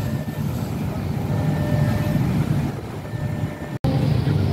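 KRL electric commuter train at the station platform: a steady low rumble with faint steady whining tones. The sound cuts out for an instant near the end, then the rumble resumes.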